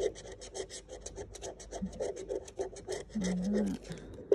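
Scratch-off lottery ticket being scratched, the latex coating scraped off in rapid short strokes, about seven a second, slowing near the end. A single sharp tap closes it.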